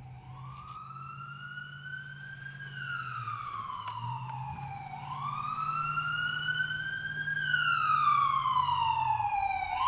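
A wailing siren rising and falling slowly in pitch, two full sweeps of about five seconds each, growing steadily louder, over a low steady hum.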